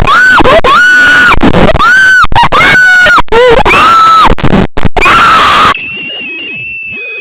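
Heavily distorted, very loud alarm sound effect: a string of pitched wails that rise, hold and fall, each a third of a second to nearly a second long, with sharp dropouts between some of them. About six seconds in it cuts to a quieter, thin, wavering high tone.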